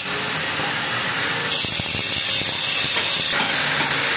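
Angle grinder cutting through the steel neck pipe of a stock motorcycle muffler: a steady, hissing grind of the disc on metal, its texture changing slightly about one and a half seconds in.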